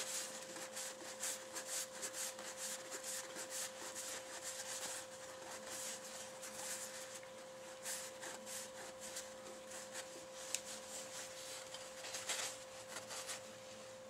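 Hand polishing of a waxed oak turkey pot call: irregular scuffing rub strokes on the wood, over a steady faint hum.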